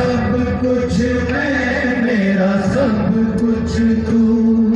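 A solo voice singing a Hindi patriotic song into a microphone, with long held, wavering notes, over a steady recorded music backing.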